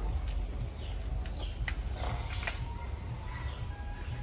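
Steady high-pitched drone of insects, likely crickets, over low outdoor background rumble, with a few light clicks from kitchen utensils.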